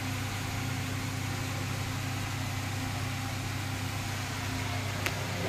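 Steady low mechanical hum running evenly throughout, with a single short click about five seconds in.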